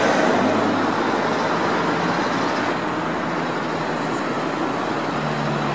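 Street traffic noise as a car that has just passed close by fades away, leaving a steady hiss of road traffic. A car engine's low hum grows in again near the end.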